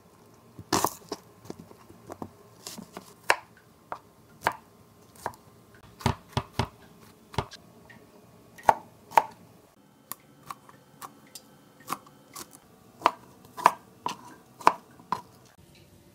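Kitchen knife chopping onion and bell pepper on a cutting board: irregular sharp knocks of the blade striking the board, about one or two a second.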